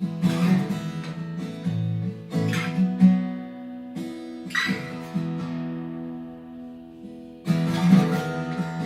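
Instrumental intro of a Christmas song: chords strummed on an acoustic guitar, each one left to ring for a couple of seconds before the next.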